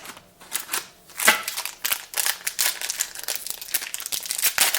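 Crinkling of a trading-card booster pack wrapper being opened and handled, a dense run of sharp crackles from about half a second in.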